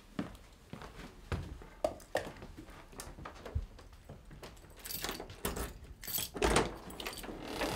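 A few scattered light steps and knocks, then keys jangling and a door lock being worked, with the loudest rattles in the last three seconds.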